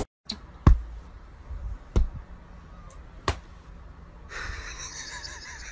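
Three sharp slaps about 1.3 seconds apart, hands being slapped down one on top of another in a hand-stacking game. Near the end a faint hiss comes in.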